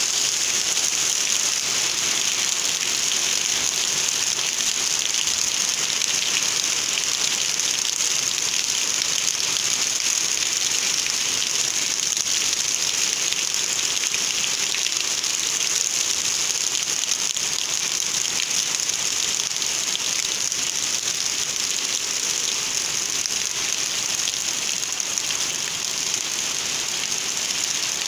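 Rain falling steadily on trees and wet ground, an even hiss without let-up.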